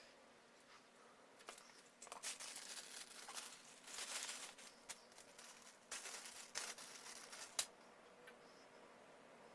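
Light clicks, clinks and scraping of parts and hand tools being handled while a generator is fitted to an engine block. The handling noises come in a cluster from about two seconds in to near eight seconds, ending with one sharp click.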